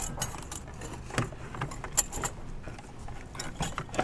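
Irregular metallic clinks and knocks from a turbocharger being twisted and wiggled up out of a 6.0L Powerstroke diesel's engine bay.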